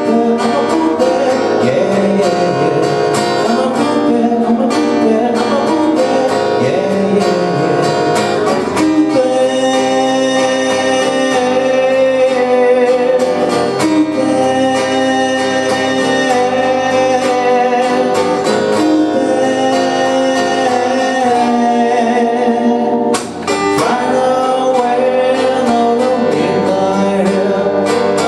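A song with a singing voice over strummed and plucked acoustic guitar. The music drops away for a moment about three-quarters of the way through, then carries on.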